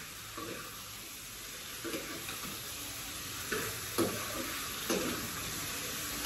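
Food sizzling in a frying pan with a steady hiss, while a cooking utensil scrapes and knocks against the pan about six times.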